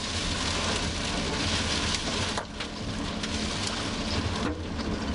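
Heavy rain hitting a moving vehicle, heard from inside the cabin, over a steady low rumble of tyres and engine on a wet road. The rain noise dips briefly twice.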